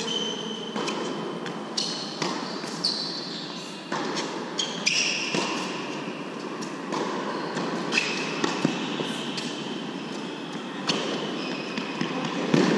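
Tennis rally on an indoor hard court: sharp pops of racquet strikes and ball bounces every second or so, with high squeaks of tennis shoes on the court between them, echoing in the hall.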